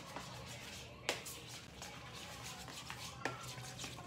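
Spoon stirring and tapping in a bowl of oatmeal: a few sharp clicks and knocks, the loudest about a second in, over a low steady hum.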